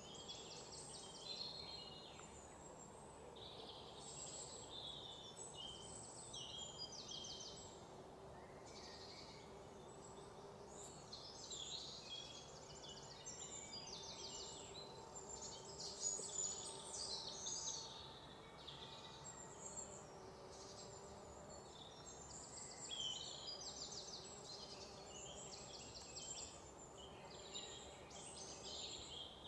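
Small birds chirping and trilling over and over, high-pitched and fairly faint, over a steady low background hum.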